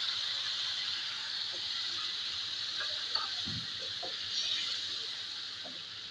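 Tomato paste sizzling in hot oil with fried garlic and spices in a frying pan: a steady hiss that slowly fades, with a few light scrapes and taps of a wooden spatula stirring it.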